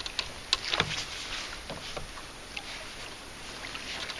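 A few light knocks and handling noises in the first second, then a faint steady hiss, as a fish is netted over the side of a small boat.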